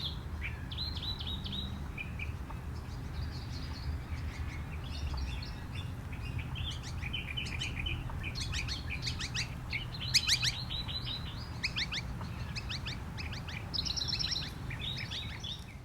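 Wild birds calling: a mix of short chirps, whistles and quick falling notes, busiest in the second half, over a low steady rumble.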